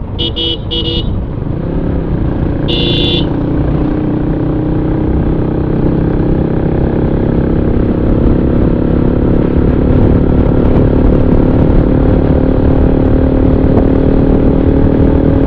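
Motorcycle engine running steadily at cruising speed, with wind and road noise. A high-pitched horn toots three times in quick succession at the start and once more about three seconds in.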